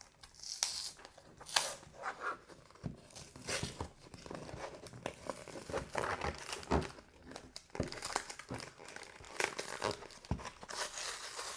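Plastic blister packaging of a Pokémon trading-card pack being pried and torn open by hand, crinkling and ripping in irregular crackles throughout: a struggle to get it open.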